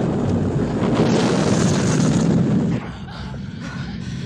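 Loud, dense rumbling roar with a hiss, from a film's sound-effects mix of fire and machinery. It drops away sharply about three seconds in to a lower rumble.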